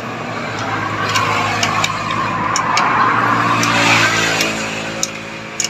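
A motor vehicle's engine passing by, building to its loudest about four seconds in and then fading, with a few light metallic clicks of a spanner on the motorcycle's fork fittings.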